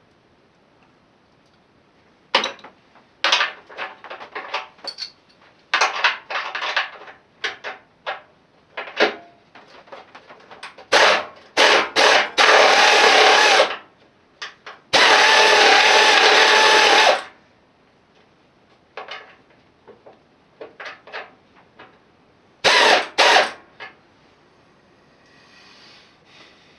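Metal hand tools clattering and rattling as someone rummages through a toolbox in search of a 14 mm spanner: a run of sharp clanks, with two longer spells of continuous jangling near the middle.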